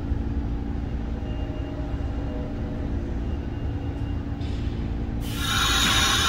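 New York City subway train beside the platform, a steady low rumble with a faint electric motor hum. About five seconds in, a louder rushing noise comes up.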